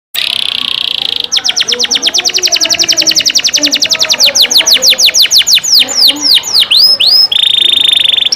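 Songbird song, the kind played as masteran to train competition songbirds. It opens with a short buzzy trill, then runs into a long series of rapid down-slurred whistled notes, about ten a second, which slow into a few wide swooping notes and end in another steady buzzy trill.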